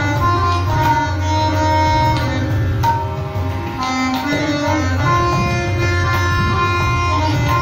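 Harmonium playing a melody of held notes in Raag Yaman, accompanied by tabla and cajon keeping Zhaptaal, a ten-beat cycle.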